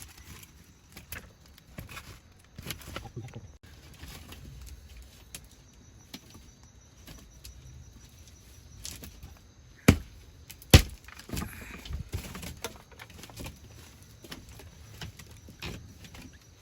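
Scattered light knocks and clicks, with two sharp, loud knocks a second apart about ten seconds in.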